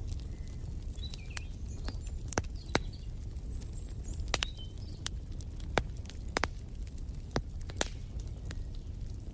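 Wood fire crackling in a fireplace: irregular sharp pops and snaps, about a dozen, over a steady low rumble. Faint short bird chirps come and go.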